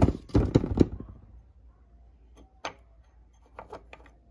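Metal and plastic parts of a self-balancing scooter's opened steering-shaft mount clicking and knocking as they are handled and a metal strip is worked loose. A quick run of sharp clicks and knocks in the first second, then a lone click and a few lighter clicks later.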